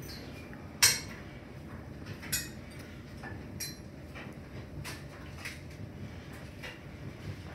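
Scattered light metallic clinks and clatters as things are handled at a bicycle, the sharpest about a second in, followed by several fainter ones.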